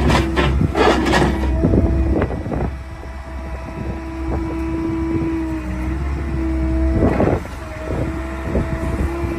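Bobcat S76 skid steer's 74 hp Doosan diesel running with a low rumble and a steady whine. Louder rushes of noise come in the first second and a half and again about seven seconds in.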